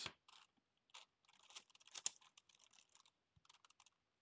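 Plastic Gigaminx, a dodecahedral twisty puzzle, being turned by hand: quiet, irregular clicking and clacking of its layers, loudest about two seconds in.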